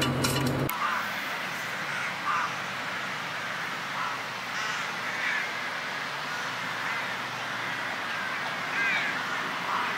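Crows cawing, short harsh calls repeated every second or two over a steady outdoor hiss. A bit of music cuts off under a second in.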